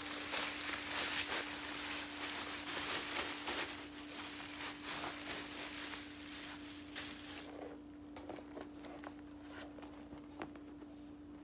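Plastic wrapping crinkling and rustling as a handbag is pulled out of it, busiest over the first six seconds or so and dying down to occasional rustles after about seven seconds.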